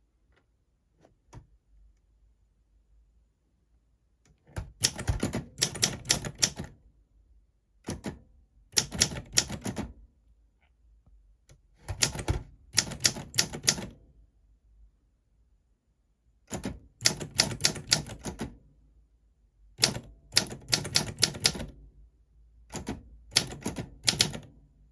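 Olympia SM4 manual portable typewriter being typed on: after about four quiet seconds, bursts of rapid key strikes come in runs of one to two seconds, with pauses of a second or so between them.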